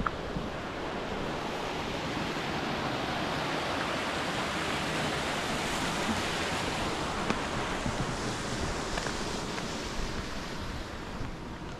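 Steady rush of flowing water, an even hiss-like roar that grows a little brighter around the middle.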